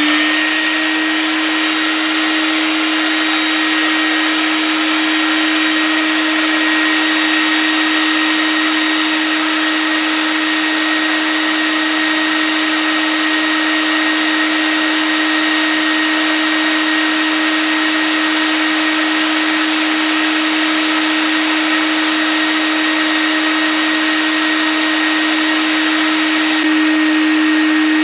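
Homemade bee vacuum running steadily, a constant motor hum over rushing air, drawing honey bees off the comb through its smooth hose. The suction is set as soft as it will go.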